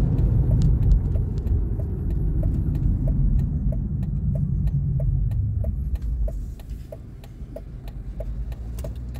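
Road and engine rumble inside a moving car, easing off about six seconds in as the car slows. Through it a turn signal ticks steadily, about one and a half ticks a second.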